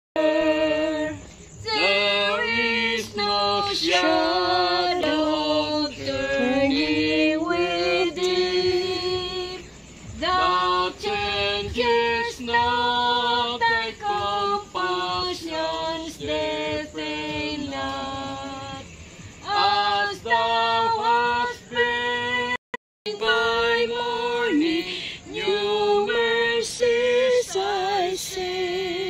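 A woman singing a slow melody with long held notes that waver in pitch. The sound cuts out briefly about two-thirds of the way through.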